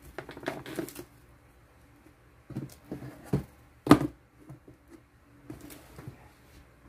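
Handling noises from a cling-wrapped sneaker and a cardboard box being moved about: plastic rustling in the first second, then a few knocks, the loudest a sharp knock just before four seconds in, and a couple of lighter knocks later.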